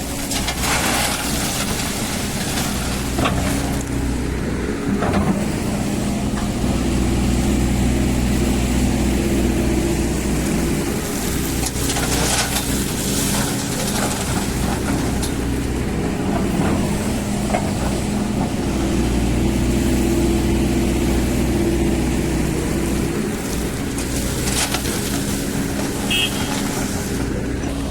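Hydraulic excavator's diesel engine running steadily, swelling twice under load as it works, with occasional sharp knocks from the bucket handling stone.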